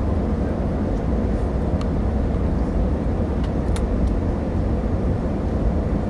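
Steady low drone of engines and rushing air inside a passenger airliner's cabin on its landing approach, with a couple of faint ticks.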